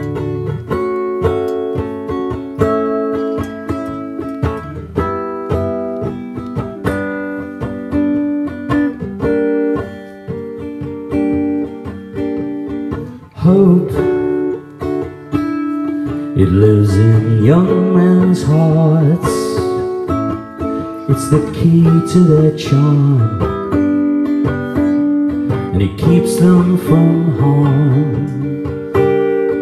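Solo steel-string acoustic guitar played live through a stage microphone: separate picked notes at first, then from about halfway it is played harder and louder with full strummed chords.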